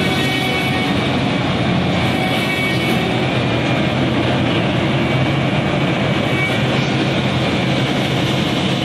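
Korail electric locomotive moving slowly past at the head of a passenger train: a loud, steady mechanical roar with a low hum and faint high whining tones.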